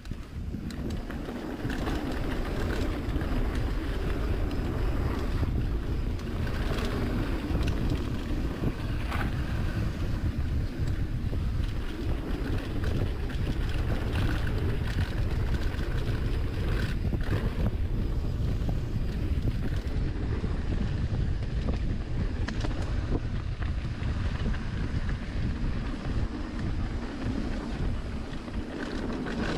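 Wind buffeting the microphone of a riding mountain biker's camera, over a steady low rumble of tyres on dirt trail and frequent short knocks and rattles from the bike over rough ground.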